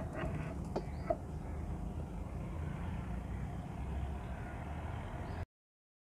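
Steady low outdoor rumble with a couple of light clicks about a second in; the sound cuts off suddenly into dead silence near the end.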